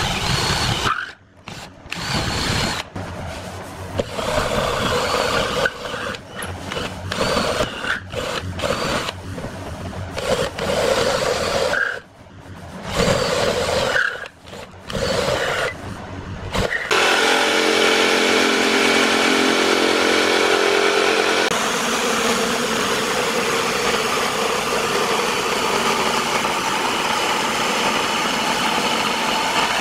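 Electric drill boring holes through plywood in short stop-start runs. About seventeen seconds in, a jigsaw starts and runs steadily, cutting the plywood panel.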